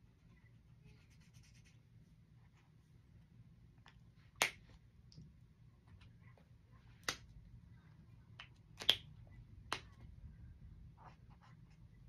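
Felt-tip markers on sketchbook paper: faint scratchy strokes, broken by four sharp clicks of marker caps snapping off and on as markers are swapped, loudest a little before the nine-second mark.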